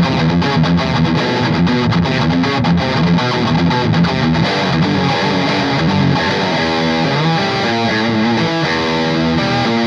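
Yamaha Pacifica J112Mx electric guitar, freshly set up and fitted with upgraded pickups, being played: busy picked playing for the first six seconds or so, then held chords left ringing toward the end.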